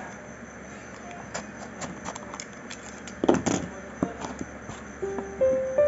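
Handling and opening a cardboard parcel box: scattered clicks and light knocks, with a louder scrape and rustle of cardboard flaps about three seconds in. Soft piano music comes in near the end.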